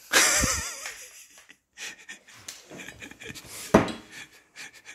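A strained, wheezing breath at the start, then light clicks and knocks of Benelli M2 semi-automatic shotgun parts being handled and fitted together, with one sharp metal knock a little before the end.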